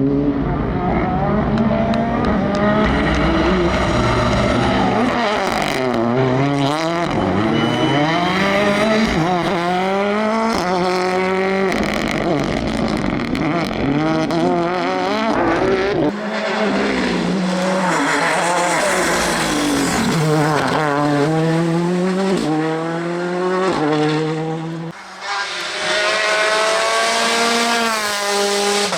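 Ford Fiesta R5 rally car's turbocharged 1.6-litre four-cylinder engine at full stage pace. The revs climb through the gears with quick shifts and drop away under braking, with a brief lift about 25 seconds in.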